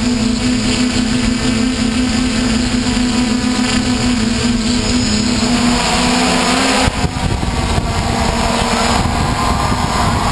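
Mini hexacopter drone's electric motors and propellers whirring steadily with a strong hum, heard from the drone's own camera. About seven seconds in the steady hum breaks off suddenly and the sound turns rougher and noisier.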